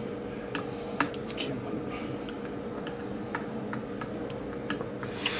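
Light metallic clicks, about ten at uneven intervals with the sharpest about a second in, from adjusting a chainsaw chain's tension: the screwdriver working the bar's tensioner screw and the chain being pulled along the bar to check its play. A steady low hum runs underneath.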